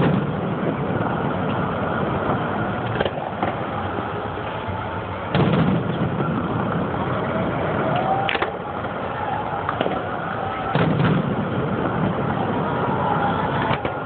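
Aerial firework shells bursting with booms and cracks about every two to three seconds, the heaviest a little past five seconds in and again near eleven seconds, over a steady background noise.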